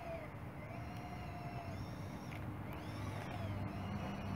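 Electric drive motors of an RC track loader, a converted Bruder 963 with a dozer blade, whining as it drives over sand; the whine rises and falls in pitch several times with the throttle, over a steady low rumble.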